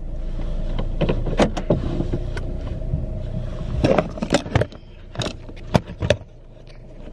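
Car cabin noise: a steady low rumble of engine and road, with a scatter of sharp clicks and knocks over it. The rumble quietens about halfway through as the car slows to a stop.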